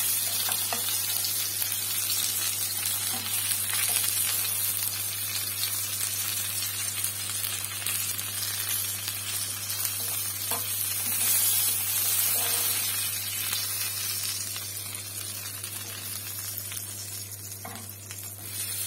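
Breaded chicken strips sizzling as they shallow-fry in hot oil in a pan: a steady hiss with scattered faint pops, easing slightly near the end.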